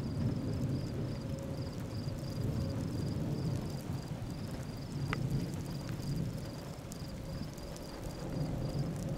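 Distant thunder rumbling low and unevenly, mixed with wind noise. A faint, high, even chirp pulses about three times a second throughout.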